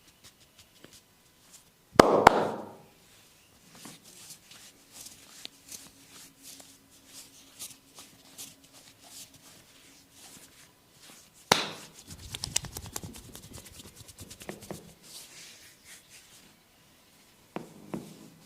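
Hands working on bare skin during a massage: two sharp smacks about two seconds in, soft scattered taps and clicks, then a loud hit followed by a few seconds of rapid tapping, and a short burst near the end.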